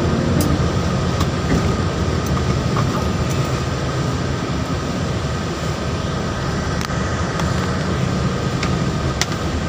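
Steady low rumble of a truck's engine heard inside the cab, with a few sharp clicks scattered through it.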